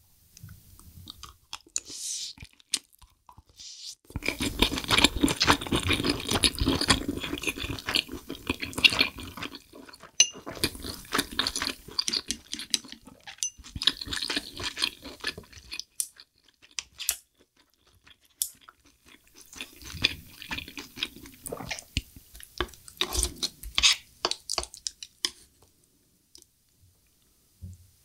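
Close-miked chewing of braised abalone and rice, a dense run of small clicks and smacks. It comes in two long spells with a short break between, during which there are only a few single clicks.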